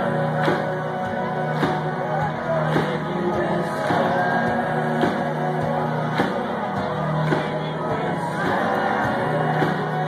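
Live band playing a synth-driven indie rock song with singing, a heavy drum hit about once a second over steady bass notes. Recorded on a phone mic from within the crowd.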